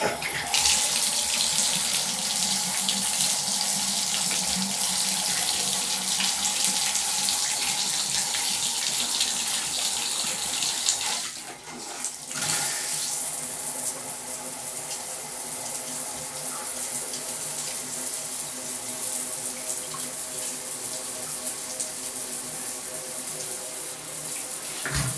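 Water running hard from a newly installed bathroom faucet as it is tested, a steady rush that starts suddenly, drops out briefly about halfway through and then resumes a little quieter.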